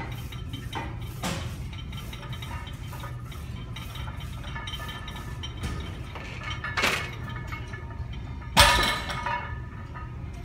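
Loaded barbell being deadlifted, 317 lb for reps: the iron weight plates clink against the bar a few times. The loudest is a clank with a deep thud about eight and a half seconds in, as the bar comes back down to the floor, ringing briefly after.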